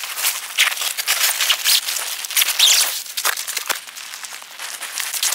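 Gusty mountain wind picking up: a rushing hiss that swells and dips, with a rapid crackling flutter.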